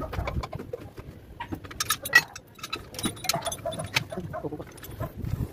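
Steel lifting chain of a manual chain hoist rattling and clinking irregularly as it is worked to move a truck transmission hanging from it.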